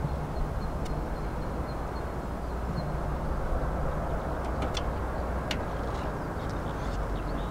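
Boeing 767-300 jetliner on final approach, its engines a steady distant rush with a low rumble. A few faint clicks sound about two-thirds of the way through.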